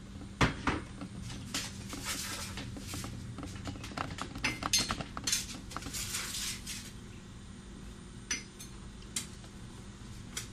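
Irregular clinks and knocks of kitchenware: a wooden spoon working in a pot of mashed strawberries as sugar is added, with a glass measuring cup beside it. A low steady hum runs underneath.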